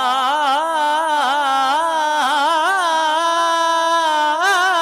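A young man's voice singing a naat unaccompanied, holding one long melismatic phrase without a break. Its pitch wavers and turns in small ornaments.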